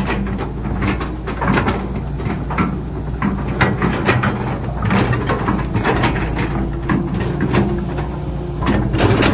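Excavator's diesel engine running steadily under many irregular clanks and knocks from the machine at work.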